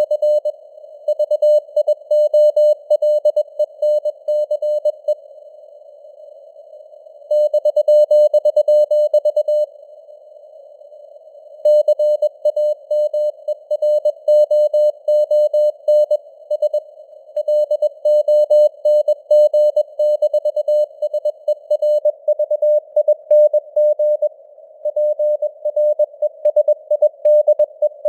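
Morse code sent at 21 words per minute: a single steady tone keyed on and off in rapid dots and dashes, over a narrow band of simulated radio hiss, its strength fading up and down as in QSB. The keying stops twice for about two seconds, about five and about ten seconds in, leaving only the hiss.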